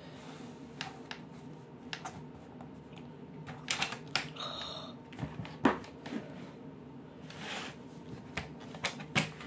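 A plastic sliding paper trimmer being worked on fabric: irregular clicks and knocks as its clear clamp arm and cutting head are handled, with a couple of short sliding rasps.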